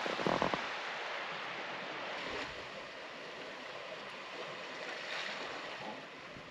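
Gentle surf washing steadily on a rocky shore, a soft even rush that swells slightly a couple of times.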